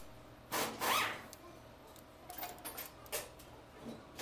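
Cylinder head bolts being tightened with a long torque wrench: a brief squealing creak a little after half a second in, then a scatter of short metallic clicks and clinks as the wrench and socket are moved to the next bolt.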